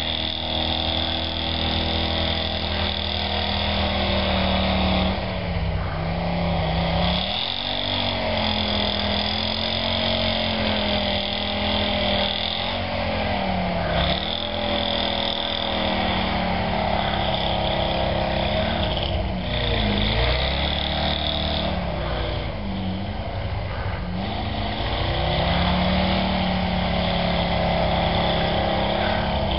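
Willys engine running under load while driving through snow, its pitch rising and falling over and over as the throttle opens and eases, with a high whine that comes and goes.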